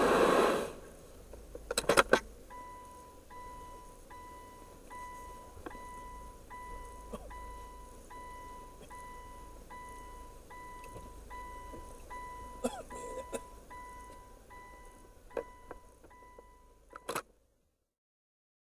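Undercarriage car-wash water spray ending in the first second, followed by a steady run of electronic beeps: long notes with short gaps, about one every three-quarters of a second, among a few sharp clicks and knocks. Everything cuts off suddenly near the end.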